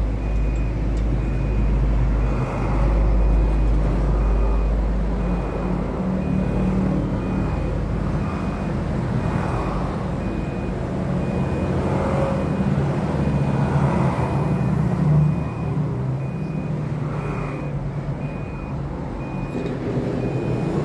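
A vehicle engine running with a steady low rumble, with a faint high electronic beep repeating about one and a half times a second.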